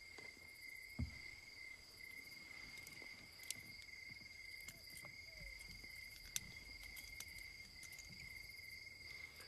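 Faint night ambience of crickets trilling steadily, two unbroken high trills, with a few soft knocks, the loudest about a second in.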